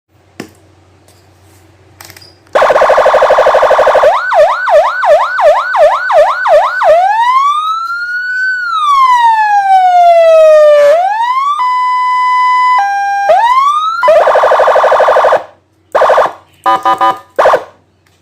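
A replica Senken 100-watt electronic siren module stepping through its tones. After a click or two comes a harsh buzzing horn blast, then a fast yelp of quick repeated rising sweeps, a slow wail that rises and falls, a two-tone hi-lo, the horn again, and finally a few short blips.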